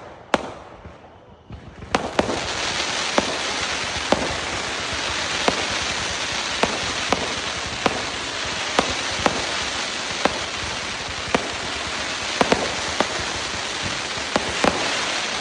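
Fireworks: a few separate sharp pops, then from about two seconds in a steady, dense hiss of crackle with scattered sharp bangs through it, fading at the very end.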